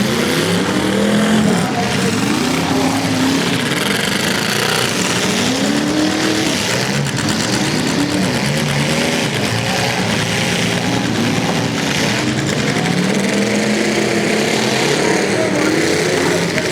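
Engines of several demolition derby cars revving up and down over one another, each rising and falling in pitch every second or two.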